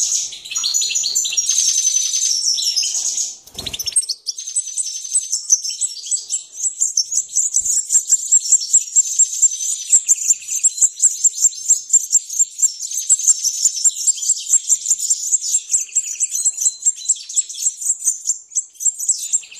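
Caged European goldfinches chirping, a dense high twitter that settles into a rapid run of about three chirps a second. A dull knock sounds once, a few seconds in.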